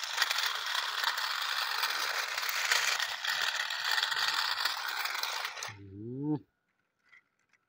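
Centy Toys Indian passenger toy train running on its plastic track: a dense, steady rattling clatter of wheels and gear mechanism. The clatter stops about five and a half seconds in and is followed by a short rising tone, then silence.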